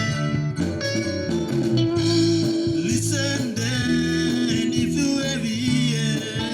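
Gospel band music with guitar and bass playing held chords.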